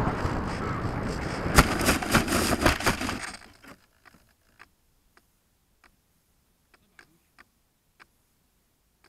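R-Planes Pioneer FPV model plane coming down in snow, heard from its onboard camera: rushing air, then a run of sharp knocks and scraping as it hits and slides through the snow. The noise stops suddenly about three and a half seconds in, leaving near silence with a few faint ticks.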